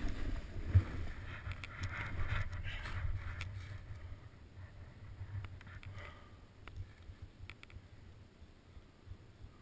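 Wind buffeting an action camera's microphone, with a low rumble, and a hiss of skis or a board scraping over snow. Both fade about four seconds in as the rider slows almost to a stop, leaving faint rumble and small knocks.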